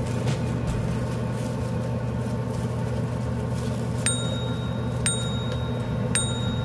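Three short, identical bell-like dings about a second apart, from an on-screen subscribe-banner sound effect, over a steady low hum.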